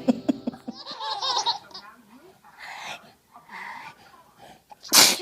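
Laughter in quick rhythmic pulses, then softer breathy sounds, and near the end a single short, loud sneeze.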